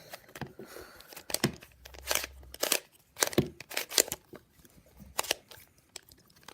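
Plastic clicks and clacks of a 3x3 Rubik's cube being turned by hand, an irregular run of sharp snaps as the layers are twisted.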